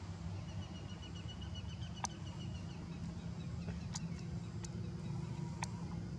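Outdoor ambience: a steady low rumble throughout, with a rapid high chirping trill for about two seconds near the start and a few short sharp clicks later on.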